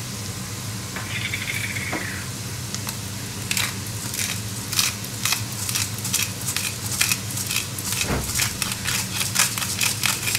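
Spice grinder being twisted, a run of dry crunching clicks several times a second that starts about three seconds in, over a low steady hum.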